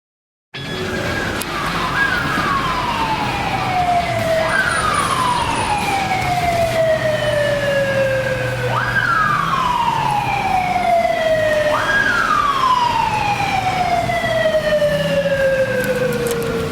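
Siren of a Honda NT1100P police motorcycle on an emergency run, wailing. Each cycle snaps up quickly to a high pitch and then falls slowly, four times over. The sound starts abruptly about half a second in.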